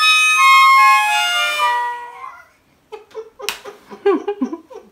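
Cheap plastic toy harmonica blown in a quick run of notes stepping down in pitch, not tuned to any scale. After a short pause, a man laughs and gasps.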